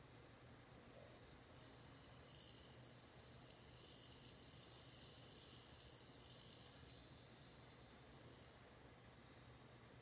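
Japanese bell cricket (suzumushi) singing: a high, ringing trill that starts about one and a half seconds in, runs for about seven seconds with a slight regular pulsing, and stops suddenly near the end. The sound comes from males raising and rubbing their wings.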